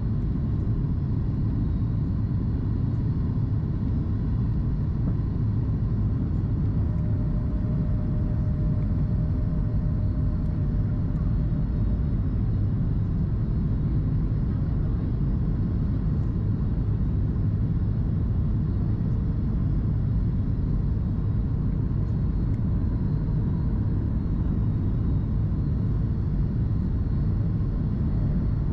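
Steady low rumble of cabin noise inside a Boeing 737 MAX 8 airliner in flight: its CFM LEAP-1B engines and the airflow over the fuselage, heard from a seat over the wing. A faint higher hum drifts in and out.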